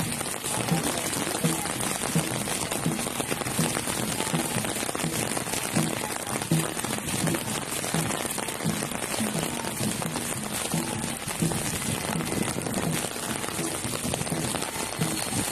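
Rain falling steadily: an even hiss with irregular soft, low taps throughout.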